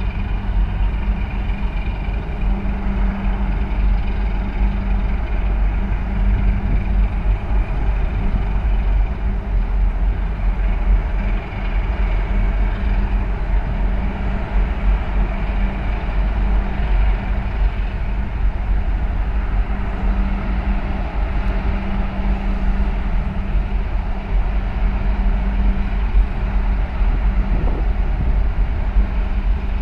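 Steady low drone of ship diesel engines, with a constant hum and a heavy, uneven low rumble, as a harbour tug works against the hull of a large container ship entering port.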